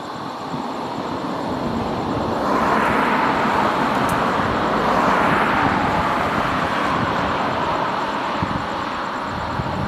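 A car passing by: the engine and tyre noise swells from about two and a half seconds in, peaks midway, then slowly fades over a steady background hiss.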